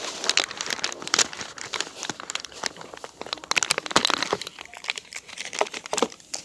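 Earbud packaging being handled and opened by hand: a dense, irregular crinkling and crackling with many small clicks.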